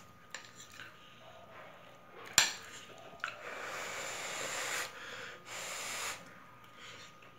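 Quiet eating sounds: a metal fork clicks once against a plate, then come two stretches of breathy noise, a longer one and a shorter one.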